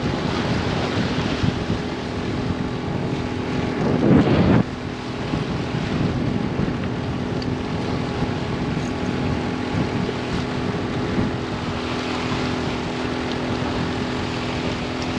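Wind buffeting the microphone outdoors by open water, over a steady low engine-like hum. About four seconds in comes a louder rush that cuts off suddenly.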